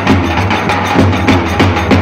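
Loud Turkish dance music driven by davul drum strikes every few tenths of a second, over a steady low bass tone.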